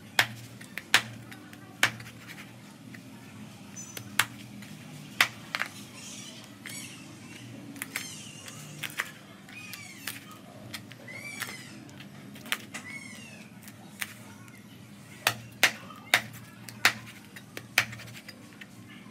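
Cleaver chopping frog meat on a plastic cutting board: sharp single knocks at an irregular pace, coming faster near the end. A few high, sliding animal calls in the middle.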